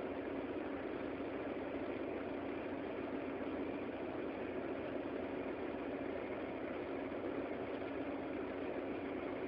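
Car engine idling steadily, with no revving.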